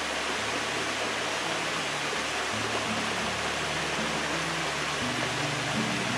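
Steady rush of flowing river water, with background music of slow, low sustained notes under it.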